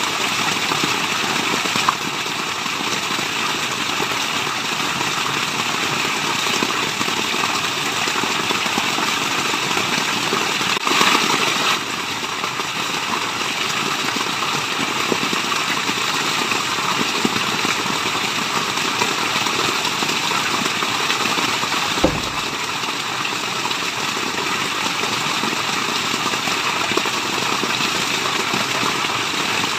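Waterfall rushing in a steady, even wash of noise. There is a brief louder surge about eleven seconds in and a single short low thump a little after twenty-two seconds.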